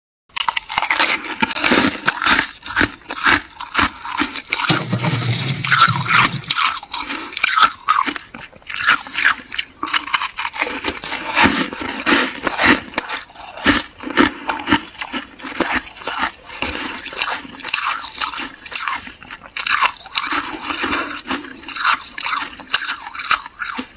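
Dry, flaky freezer frost crunching close to the microphone: a dense, continuous run of crisp crackles and crunches.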